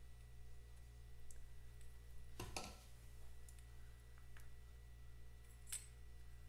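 A few faint, scattered metallic clicks and taps from a wrench being worked on a nut at the cylinder head of a Vincent V-twin engine. The loudest is a short cluster of clicks about two and a half seconds in. A low steady hum runs underneath.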